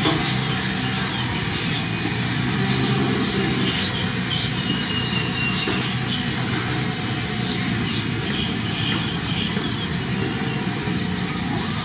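A steady low mechanical drone, like a motor engine running, with faint short high chirps over it in the middle stretch.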